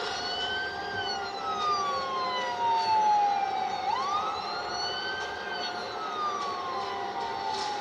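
A siren wailing in two cycles: each rises quickly, holds briefly, then falls slowly over about three seconds, the second cycle starting about four seconds in.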